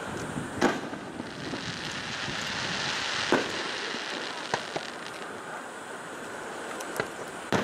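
Aerial firework shells bursting in about six sharp bangs. The loudest come about a second in and again near the middle. A hiss swells between them.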